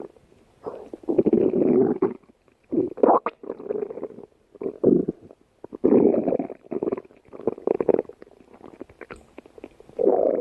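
Stomach growling and gurgling in irregular bursts, each up to about a second long, with short quiet gaps between.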